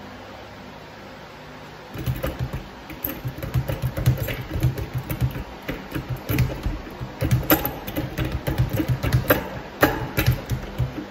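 Speed bag being punched, rebounding off an Everlast wooden platform in a rapid, steady rattle of knocks, several a second. It starts about two seconds in, with short breaks near the middle and close to the end.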